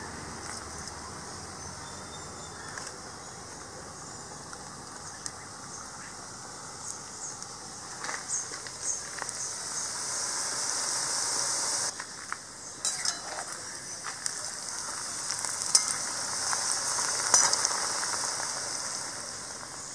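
Masala-coated cauliflower pieces deep-frying in hot oil in a kadai: a steady sizzling hiss with scattered crackles and pops, getting louder from about eight seconds in.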